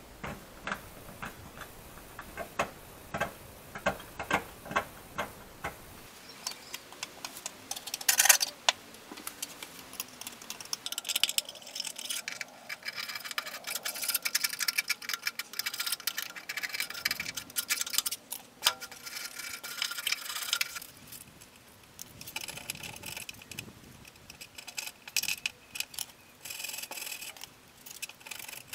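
A hand tool scraping and tapping rust off a Mazda MX-5's steel underbody. It starts as a run of sharp ticks about twice a second, then turns into long bouts of rapid scratchy strokes.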